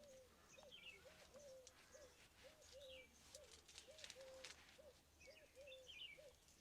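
A dove cooing faintly in a repeating phrase of low notes, two short coos and a longer one, over and over. Small birds chirp briefly here and there, with faint soft clicks.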